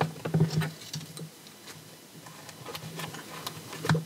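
Hands handling a paper journal while threading ribbon through its spine: light paper rustling and small scattered taps and clicks, busiest at the start, with one sharper tap near the end.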